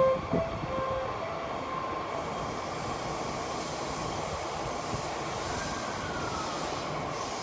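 Yamanote Line electric commuter train running at the station platform, a steady rumble, with a faint rising and then falling motor whine near the end. A few last chime tones ring in the first second.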